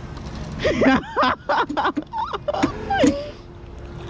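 Unclear voices calling out, their pitch rising and falling, over a steady low rumble.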